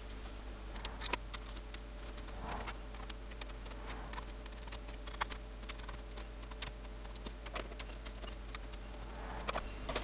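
Small irregular clicks and taps of the Sinclair QL keyboard's metal plate and plastic membrane ribbon tails being handled and pulled from their connectors.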